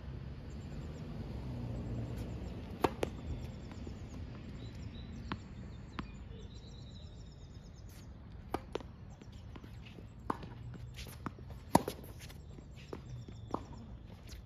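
Tennis ball bouncing on a hard court and struck by rackets during a serve and the rally that follows: a string of sharp pops, the loudest about twelve seconds in.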